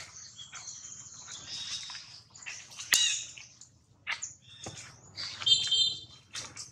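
Baby macaque giving a run of short, high-pitched squealing cries, with louder calls about three seconds in and again about five and a half seconds in, the first just after a sharp click.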